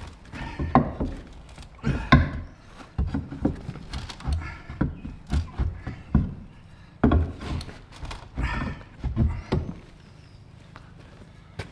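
Irregular wooden knocks and thuds, a dozen or so spread unevenly, some followed by a short ring.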